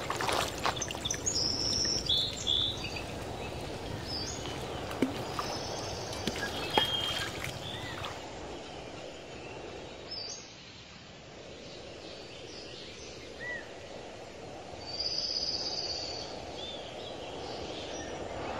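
Outdoor pond-side background with birds chirping now and then, a brighter run of chirps about fifteen seconds in. A few sharp knocks and handling sounds in the first seven seconds, as a caught fish goes into a plastic basin of water.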